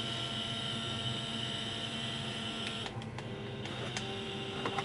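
Small electric suction pump of a handheld blackhead-remover vacuum running with a steady whir. Just before three seconds in the sound briefly dips and changes, then carries on with a slightly different tone.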